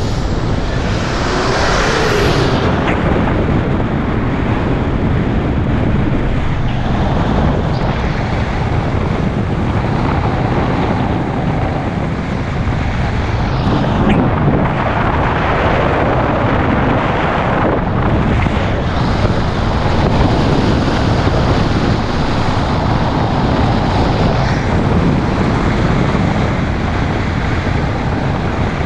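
Steady wind rush on a hood-mounted action camera's microphone, mixed with road and tyre noise from a car driving along. An oncoming truck passes close by with a brief whoosh about two seconds in.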